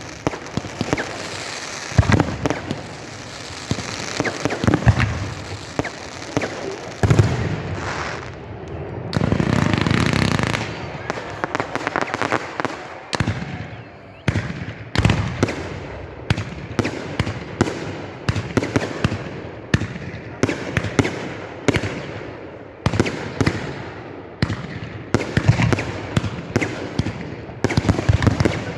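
Fireworks display: aerial shells bursting in a continuous, irregular series of sharp bangs. A longer, denser stretch of noise comes about nine to eleven seconds in.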